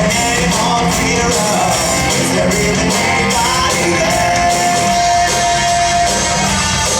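Live rock band playing, with guitar and sung vocals. A long held note comes in about four seconds in.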